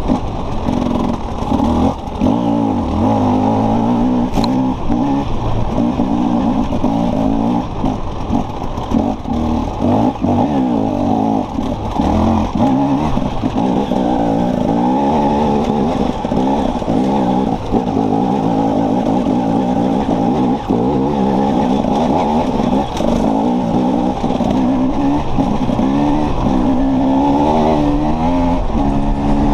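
Enduro dirt bike engine running hard and revving up and down as it climbs a rocky mule track, with frequent knocks and rattles from the bike jolting over the stones.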